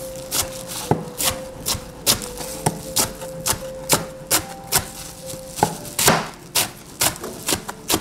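Knife chopping through pig's trotters on a cutting board in steady, even strokes, about two a second.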